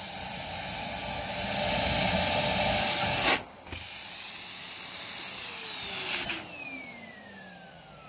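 Bosch Ergomax 2000 W canister vacuum cleaner running at its highest speed setting with a loud steady rush of air, with a sudden change in the airflow noise about three and a half seconds in. About six seconds in it is switched off and the motor whine falls steadily in pitch as it spins down.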